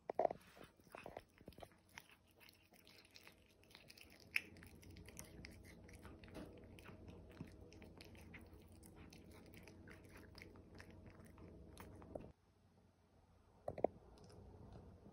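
A tabby cat chewing and biting a small piece of food, a run of faint clicks and crunches. A steady low hum starts about four seconds in and cuts off suddenly about twelve seconds in.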